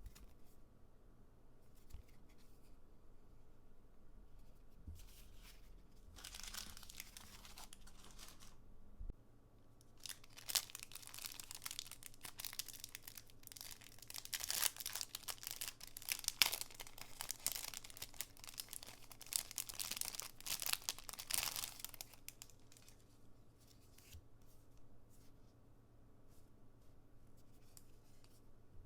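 Packaging being torn open and crinkled by hand: a short rustle, then a longer spell of tearing and crackling with sharp clicks, stopping after about twenty seconds.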